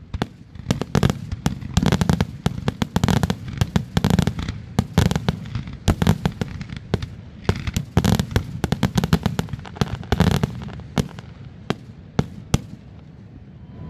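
Aerial firework shells bursting in a rapid barrage for a finale, dozens of sharp booms and bangs overlapping one another. The reports thin out near the end and stop a little before it finishes.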